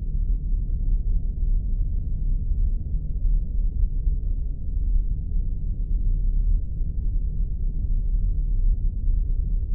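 Spaceship ambience sound effect: a steady deep rumble, with almost nothing above the low hum.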